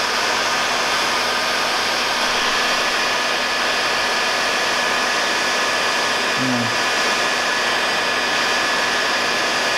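Electric heat gun blowing hot air in a steady rushing stream with a constant fan whine, aimed at a car engine thermostat.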